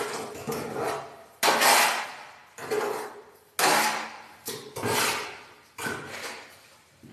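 A hand tool scraping and knocking in a bucket of fine plaster mortar, about one stroke a second, each with a brief ring from the bucket.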